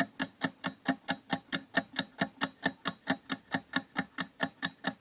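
Ticking-clock sound effect of a quiz countdown timer: a steady run of sharp ticks, about four or five a second, counting down the time to answer.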